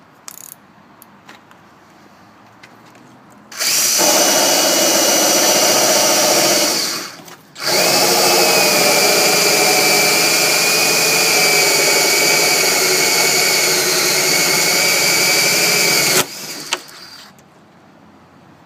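Power drill boring through a wooden door with its smaller bore bit to make the deadbolt hole. It runs in two spells, a few seconds and then about eight seconds, with a short stop between them. A few small handling clicks come before and after.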